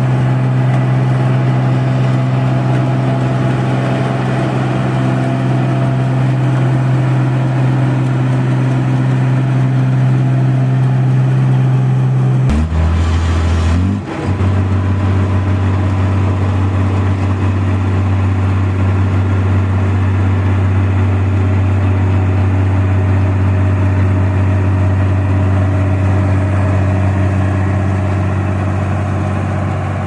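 New Holland crawler combine harvester's diesel engine running steadily with a strong low hum. About halfway through the sound breaks briefly and resumes with a lower, steady note.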